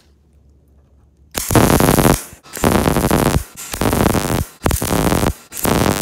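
MIG welder arc crackling on the steel truck frame in five short bursts with brief pauses between, starting about a second and a half in: stitch welding in short tacks.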